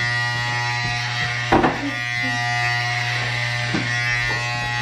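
Corded electric hair clippers buzzing steadily as they cut through hair, with one brief knock about a second and a half in.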